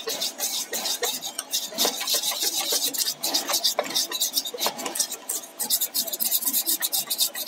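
Wire whisk beating thick gram-flour (besan) batter in a stainless steel bowl, in rapid, rhythmic strokes that scrape and tick against the steel, mixing the batter to an even consistency.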